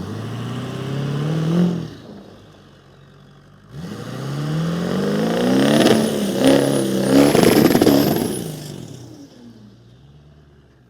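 A motor vehicle's engine revving up, then louder as it accelerates past, its pitch rising and falling with a high whine on top, before fading away.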